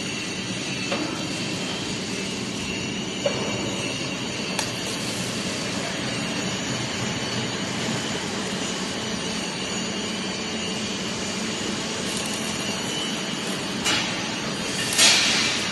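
Steady factory-floor machinery noise with a constant low hum and a high whine, broken by a few sharp knocks and, near the end, a louder short noisy burst.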